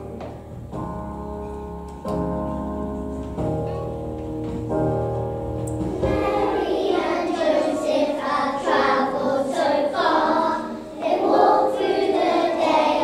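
Musical accompaniment plays held chords, and about six seconds in a group of young children starts singing along with it.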